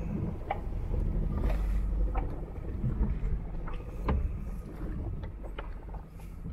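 Trimaran under way on a calm sea: a steady low rumble of motion and water noise, with irregular sharp clicks and knocks from the boat.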